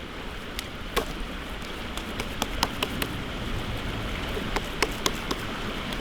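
Food frying in hot oil: a steady sizzle with scattered sharp pops and crackles.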